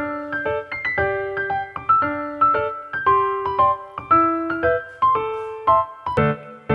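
Background music: a gentle piano melody of single notes, two or three a second, each ringing and fading, with deeper notes joining near the end.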